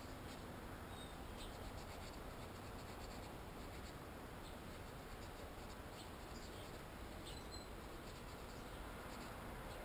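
Faint scratching and a few light clicks over a low steady hiss, the small sounds of hands and parts being handled.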